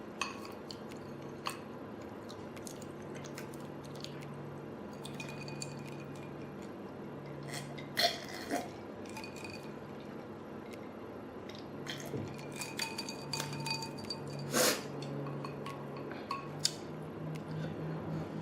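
Scattered light clinks and taps of eating utensils against dishes, the loudest about 8 and 14.5 seconds in, over a low hum that comes and goes.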